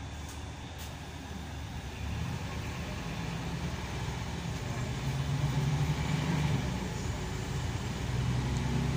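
Scania K340EB coach's diesel engine heard from inside the passenger saloon over road noise, its drone growing louder from about two seconds in, easing slightly and building again near the end.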